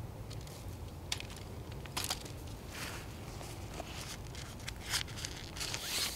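Tent being pitched: a thin tent pole clicking and knocking as it is handled, and the nylon fly and mesh inner rustling, with a few short sharp clicks over a steady low rumble.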